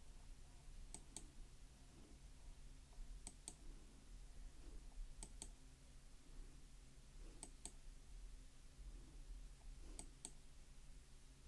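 Faint sharp clicks in pairs, about every two seconds, five pairs in all, from computer input as a document is scrolled forward, over a low steady room hum.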